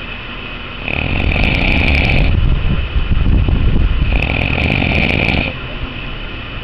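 A dog snoring in a steady rhythm, with two long rasping snores about three seconds apart.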